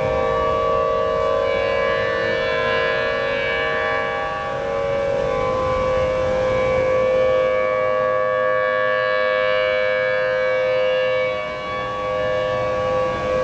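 Civil defense tsunami warning sirens sounding a loud, steady tone, the signal to move to higher ground. The sound dips briefly near the end.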